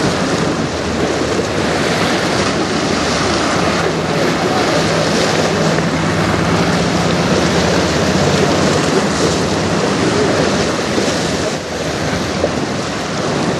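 River water splashing and lapping against a rocky shoreline, with wind on the microphone. Under it runs a low steady hum from the passing cruise ship, strongest in the middle of the stretch.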